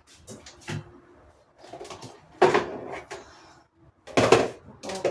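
Kitchen handling sounds: a series of separate knocks and clatters from cookware, utensils and cupboard doors being moved, the loudest about four seconds in.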